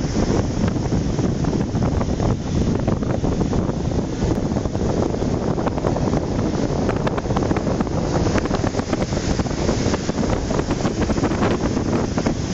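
Sea waves breaking and washing in foam over a flat rock shore, heard through strong wind buffeting the microphone, which gives a heavy, steady rumble.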